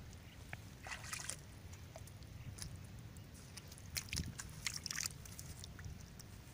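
Faint wet sloshing and scattered crackling clicks of shallow water and mud, with short louder bursts about a second in and again around four to five seconds in.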